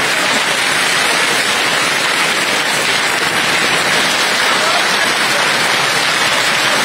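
Heavy hail mixed with rain coming down hard, a loud, steady wash of countless small impacts without a break.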